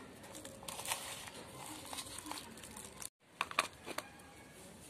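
Potting compost tipped from a plastic pot into a thin plastic cup: the plastic crinkling and the soil rustling in, with a few sharp clicks about three and a half seconds in.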